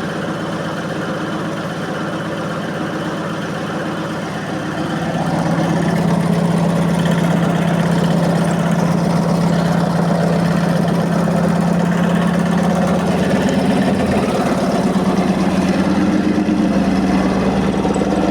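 Electrolux 15 kg commercial washing machine running, a steady motor hum with a strong low tone. The hum grows louder about five seconds in and then holds steady.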